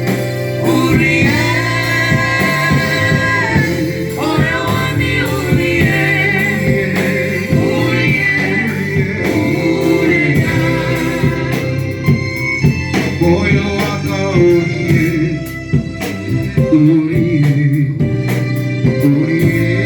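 Gospel music: singing over a band with guitar, with sharp beats showing more clearly in the second half.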